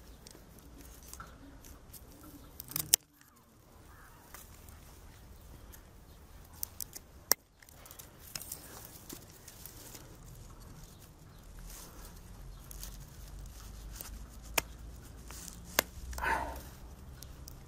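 Bypass secateurs snipping through thin mulberry shoots: a few sharp, separate clicks several seconds apart, over a faint steady background.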